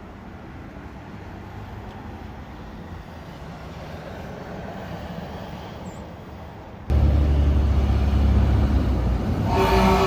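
A steady low background hum, then a loud deep rumble that starts suddenly about seven seconds in, with a horn sounding briefly near the end.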